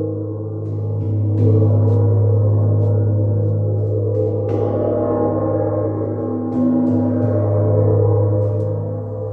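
A large gong ringing continuously with a deep hum and many overtones. It swells louder about a second and a half in and again near six and a half seconds, as it is played again.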